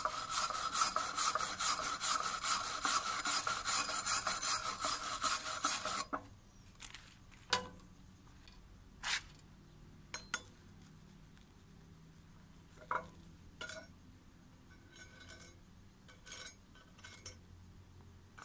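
A hand tool scrubbed rapidly back and forth over stick-welded steel beads, cleaning the welds; the scraping stops abruptly about six seconds in. Scattered light clicks and taps on the plate follow.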